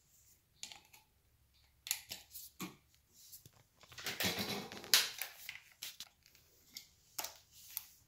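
Scattered small clicks and scrapes of a screwdriver and hands working a wall light switch's terminal screws and stiff wires in an electrical box, with a longer scraping rustle about four seconds in.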